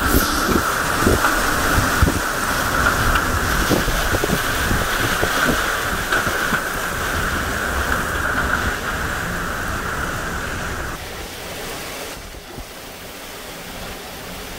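Hurricane-force wind and driving rain from Category-2 Hurricane Sally, with gusts buffeting the microphone. A steady high howl runs through the wind until about eleven seconds in, then drops away and the storm noise eases a little.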